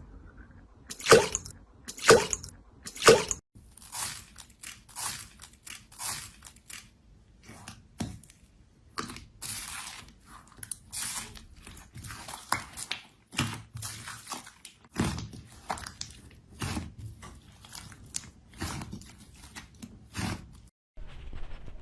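Slime being squeezed and pressed, making crunchy, squishy crackles about once a second; three louder crunches come a second apart at the start.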